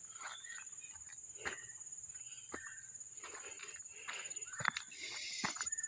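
Footsteps crunching and scuffing over a rocky trail at an irregular walking pace. A steady high insect trill runs underneath.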